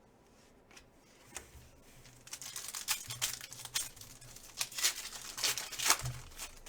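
Foil trading-card pack wrapper being crinkled and torn open by hand: a couple of faint clicks, then about four seconds of dense crackling that is loudest near the end.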